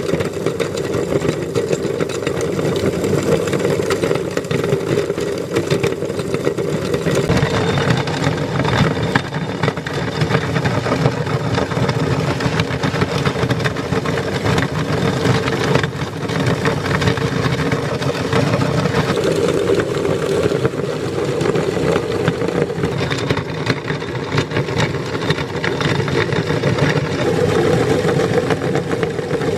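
Electric meat grinder running under load, its motor humming steadily with a dense crackle of material being crushed through it. The hum thins about seven seconds in and strengthens again later as the load shifts.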